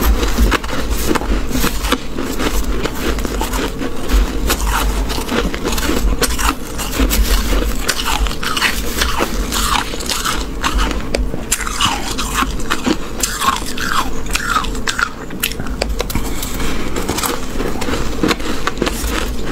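Close-miked crunching of freezer frost: a metal spoon scooping through a tub of fluffy frost and mouthfuls of it being chewed. It is a dense, continuous run of crisp crunches and crackles with many short squeaks.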